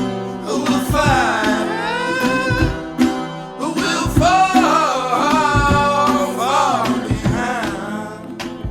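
A voice singing long, gliding lines over guitar accompaniment.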